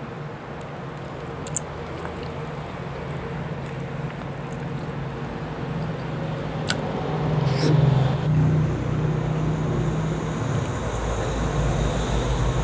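A few soft clicks of chewing and handling chicken adobo and rice by hand, over a steady low motor hum that swells about eight seconds in and deepens near the end.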